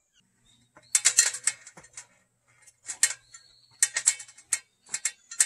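Irregular knocks and clicks of someone climbing a ladder up into an attic, steps landing unevenly on the rungs.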